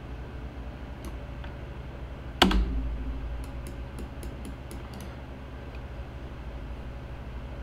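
One sharp knock with a short low ring about two and a half seconds in, then a quick run of about seven light computer clicks, over a steady low hum.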